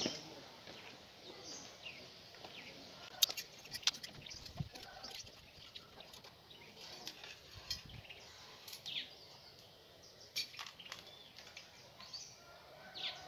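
Small birds chirping, short high calls scattered throughout, with a few sharp clicks standing out about three, four and ten seconds in.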